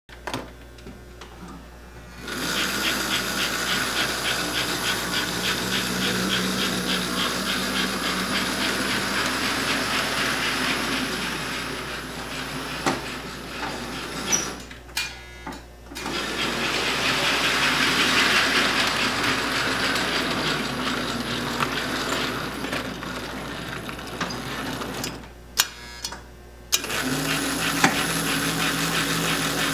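American Flyer 1949 #322 AC Hudson O-gauge model steam locomotive running under power: a steady electric motor whir with the wheels clicking along the track. It stops and restarts twice, with a few sharp clicks around the second stop.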